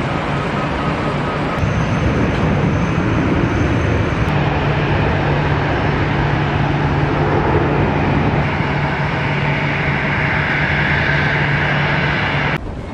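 Steady airport apron noise of aircraft and ground equipment running, with a low steady hum through most of it; the level drops suddenly near the end.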